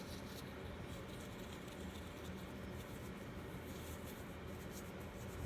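Soft, irregular strokes of a mop brush spreading a thin, watery matte coating over a vinyl doll kit, faint over a steady low room hum.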